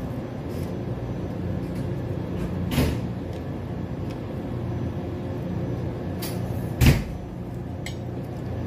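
Steady low background hum with two short knocks, about three and seven seconds in, the second the louder, as sushi rice is scooped by hand from a steel pot and laid on a nori sheet.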